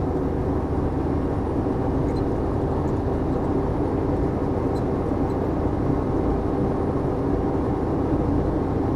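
Semi truck's diesel engine pulling steadily in sixth gear while climbing, a constant low drone with tyre and road noise underneath.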